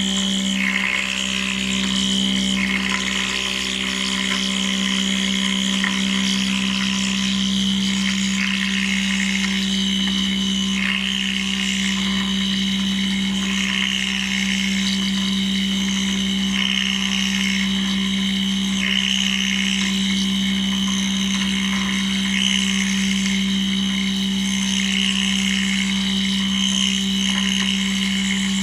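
CNC metal milling machine running: a steady low hum under a high whine that changes and breaks off every few seconds as the machine works.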